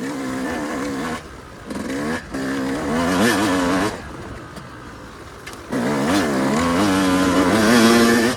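Yamaha YZ250 two-stroke dirt bike engine pulling hard in repeated bursts of throttle, its pitch wavering, dropping back between bursts. The longest and loudest burst comes in the second half.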